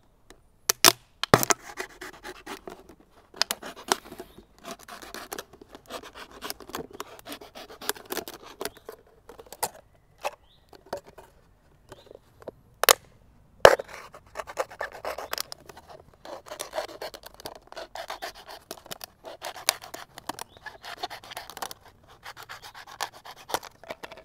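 Knife cutting a thin plastic water bottle: scraping and crinkling of the plastic, broken by sharp cracks, the loudest about a second in and again about 13 seconds in.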